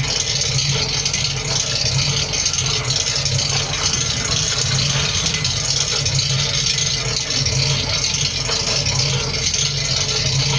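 Planetary mixer with homogenizer running steadily: a continuous low, slightly pulsing hum with a hiss above it.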